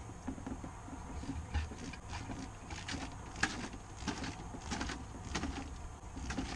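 Outboard fuel line's rubber primer bulb being squeezed by hand to pump gasoline through the hose: faint irregular clicks and squishes, settling into a squeeze about every two-thirds of a second in the second half.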